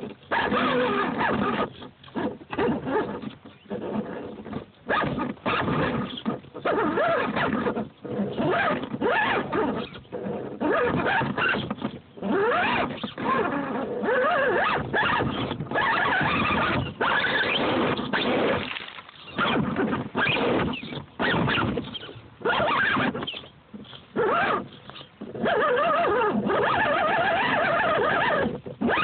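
Axial Wraith RC rock crawler's electric motor and drivetrain whining in stop-start bursts, its pitch wavering as the throttle is worked while crawling.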